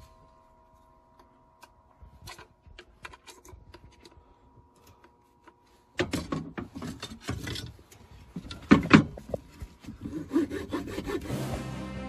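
Wood being handled by hand: soft clicks at first, then from about halfway through several seconds of loud rubbing and scraping on wood. Background music comes in near the end.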